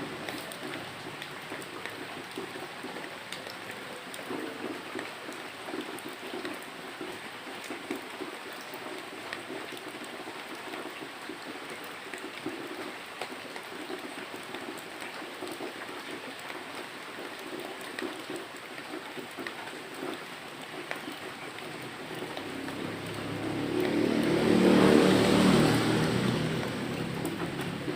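Steady rain falling, with many small drop ticks over an even hiss. Near the end a louder rushing swell builds and fades over a few seconds.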